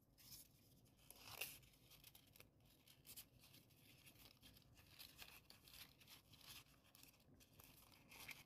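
Faint rustling and crinkling of folded paper origami units being handled and slotted together, with a slightly louder rustle about a second and a half in.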